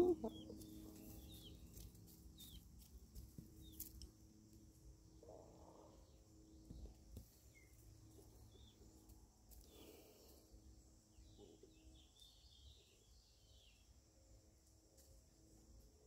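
Hens clucking: one loud cluck right at the start, then occasional soft low clucks, with faint short high bird chirps throughout.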